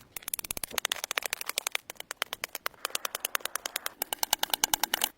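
Campfire crackling, a rapid, irregular run of sharp snaps and pops, many a second.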